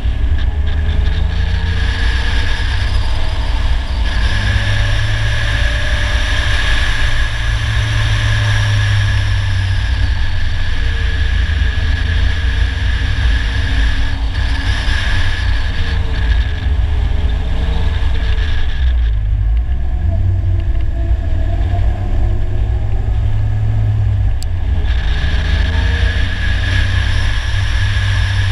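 Polaris Slingshot three-wheeled roadster driving along a winding road, its engine note rising and falling with the throttle over a heavy low rumble of wind and road noise. The engine eases off for a few seconds past the middle, then pulls again.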